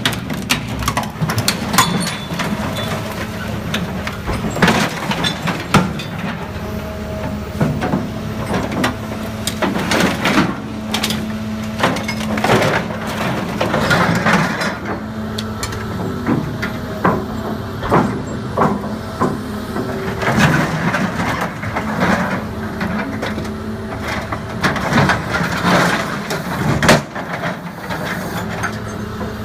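Heavy diesel machinery running steadily, overlaid by many irregular metal bangs, creaks and cracks as a bulldozer is torn apart for scrap.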